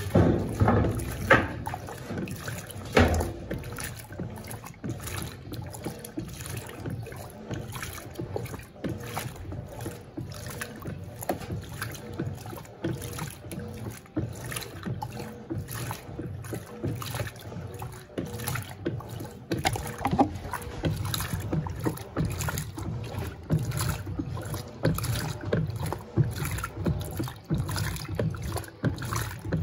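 Electrolux Turbo Compacta 7 kg (LTC07) top-loading washing machine agitating a load of rugs: water sloshing and churning in the tub over a low motor rumble, with a few louder knocks early on.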